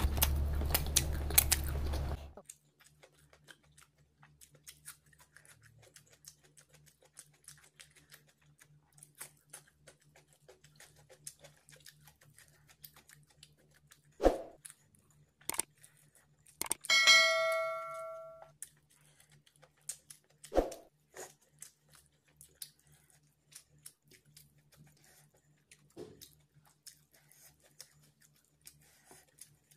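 Close-miked eating: a man chewing and tearing roast chicken with his fingers, with faint mouth clicks and smacks and a few sharp knocks. About seventeen seconds in, a single ding rings out and fades over a second and a half. The first two seconds hold a louder, fuller sound that cuts off abruptly.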